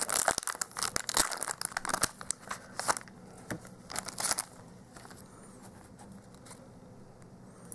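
Foil wrapper of a Pokémon trading-card booster pack being torn open and crinkled for about three seconds, then a few lighter rustles as the stack of cards is slid out and handled.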